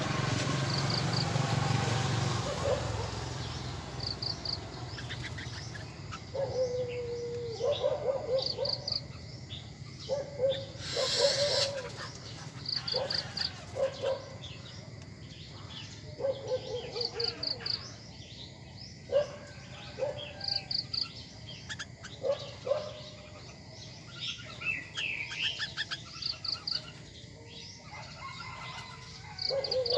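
Birds calling in short, repeated, bending notes throughout, over clusters of quick high chirps. There is a brief rustling burst about eleven seconds in.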